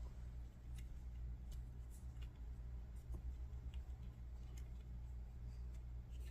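Faint, scattered small clicks and ticks of small screws and a screwdriver being worked into a metal lightsaber hilt, over a steady low hum.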